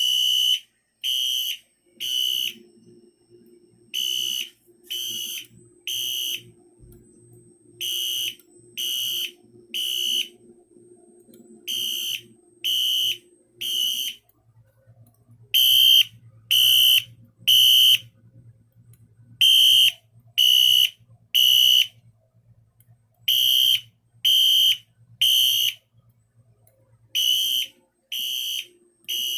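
Wheelock Exceeder fire alarm horn sounding the code 3 temporal pattern: three short high-pitched beeps, a pause, then three more, repeating about every four seconds. It is set to low volume with tape over the horn, and a faint low hum runs underneath.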